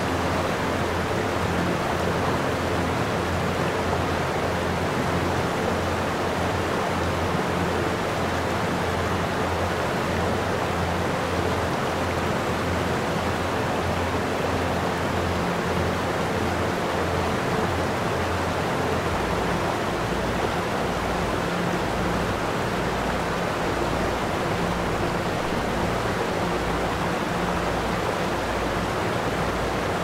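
Steady rushing noise like running water, even throughout, with a low pulsing tone underneath that drops lower about two-thirds of the way through.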